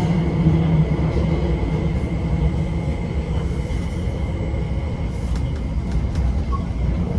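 Interior of an MTR SP1900 metro train running between stations: a steady low rumble with a thin, steady high whine running over it.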